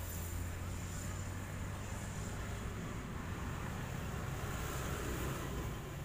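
Wind blowing on the microphone: a steady low rumble with a faint hiss above it.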